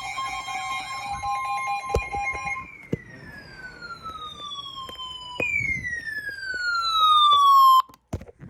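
Emergency Alert System attention signal, the steady two-note tone, with a warbling siren-like tone over it. At about two and a half seconds it gives way to two falling electronic tones, each gliding down for about two and a half seconds. The second is louder and cuts off abruptly near the end.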